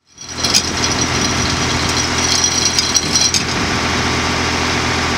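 Tractor engine running steadily, driving a tractor-mounted hydraulic log splitter. A high rattling hiss rides over it for the first three seconds or so, then stops sharply.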